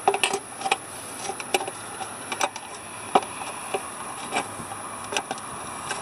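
Light knocks and clicks, about ten at uneven intervals, as a plastic funnel is set into the oil filler hole on a diesel engine's metal rocker cover and shifted into place.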